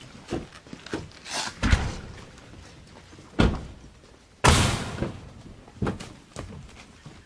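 A series of knocks and footsteps, with a door slamming shut about four and a half seconds in.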